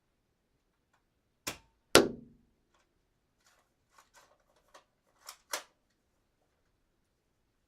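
Gun sound effect: a sharp metallic click, then a single loud gunshot half a second later with a short ringing tail, followed by a series of lighter mechanical clicks and two sharper clacks of the gun's action.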